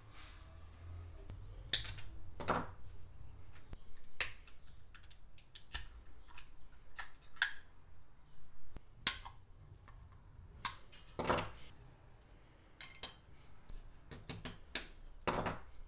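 Scattered sharp clicks and snaps of hard plastic as a factory car-door tweeter is pried out of its molded plastic bracket with a screwdriver and the bracket is clipped with cutting pliers.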